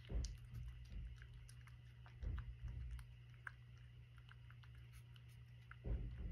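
Cat chewing food from a ceramic bowl: many small sharp clicks of the teeth, with a few soft low thumps.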